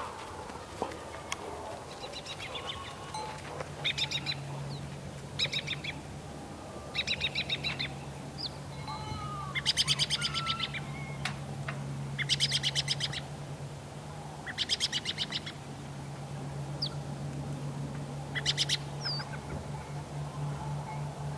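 Farmyard birds calling: short rattling chatters repeated every second or two, with a few brief whistled notes, over a low steady hum.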